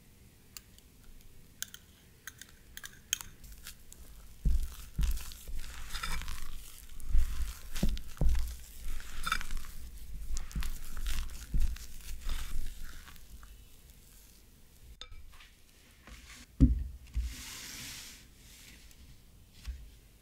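Silicone spatula folding thick, wet cake batter in a glass bowl: irregular squelching and scraping strokes with occasional dull thumps.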